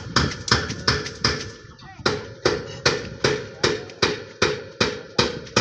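A hammer striking at a steady rhythm, about two and a half sharp blows a second, on rebar-work at a construction site.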